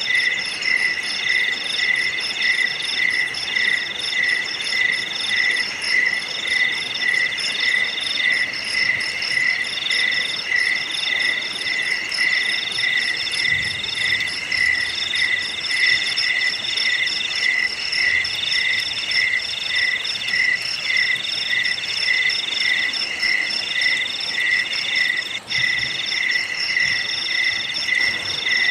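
Chorus of insects chirping: several overlapping, steady rhythmic calls, the lowest pulsing about two times a second, with higher, faster trills over it and one layer that starts and stops every second or so. The sound drops out for an instant near the end.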